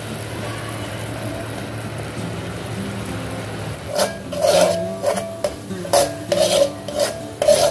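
Jaggery syrup simmering with a steady hiss in an aluminium pot. About halfway in, a metal spoon starts scraping against the pot in quick repeated strokes as flour is stirred into the syrup.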